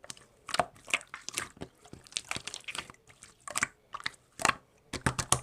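Slime being squeezed and pressed by hand, giving irregular crackles, clicks and small pops.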